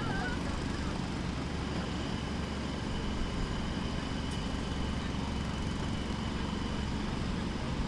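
Steady engine rumble of construction machinery running, with a faint steady high whine above it and no distinct hammer blows.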